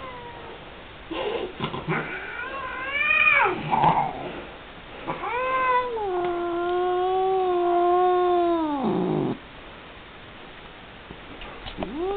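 Black-and-white domestic cat meowing in long, drawn-out yowls while being lifted and held: a rising-and-falling call about a second in, a long level call of about three seconds in the middle, and another starting near the end.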